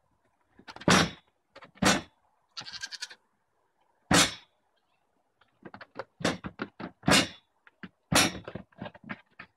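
Goat kids' hooves thumping and clattering on a wooden teeter board as they jump on and off it, with heavy knocks as the board tips. The knocks come singly about a second in, near two seconds and near four seconds, then in a rapid flurry toward the end.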